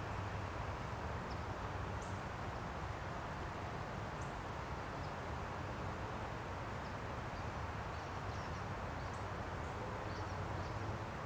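Steady outdoor background noise with a low rumble, and faint short bird chirps scattered through it.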